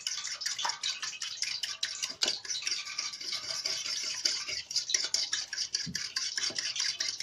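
A spoon beating an egg into milk in a bowl, its quick strokes clicking against the bowl several times a second.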